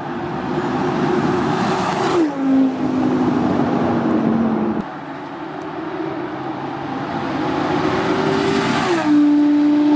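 Lamborghini Huracán LP610-4's naturally aspirated V10 accelerating hard: the engine note climbs, then drops with an upshift about two seconds in. After a cut, it pulls up through the revs again and drops with another upshift near the end.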